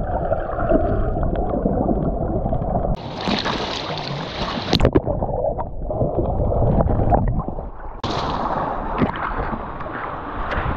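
Sea water on a camera that dips in and out of the surface: muffled underwater gurgling and rumble, broken from about 3 to 6 seconds in and again from about 8 seconds by brighter splashing and sloshing as the camera breaks the surface, with a few sharp clicks around 4 to 5 seconds in.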